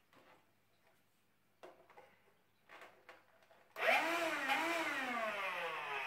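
A few light plastic clicks as the small upholstery nozzle is fitted to a CLEANmaxx cordless cyclone handheld vacuum. About four seconds in, its motor switches on with a rising whine that wavers briefly and then runs on, its pitch slowly sinking.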